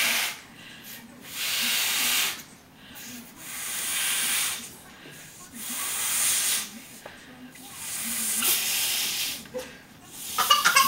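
Air forced through the nose into a green latex balloon, which is being inflated: repeated hissing exhalations about a second long, roughly one every two seconds, with quieter gaps for breathing in between. A few short squeaky sounds come just before the end.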